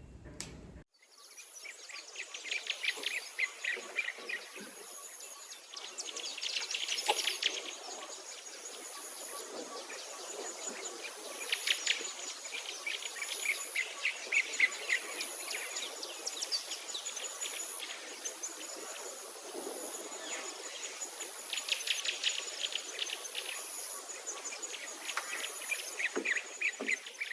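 Rural outdoor ambience of birds and insects: a high insect tone pulsing about once every two seconds, with bursts of rapid trilling calls lasting a few seconds each.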